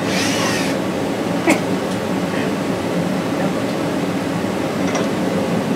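Steady whirring hum of a running machine, like a fan, with a single sharp click about one and a half seconds in.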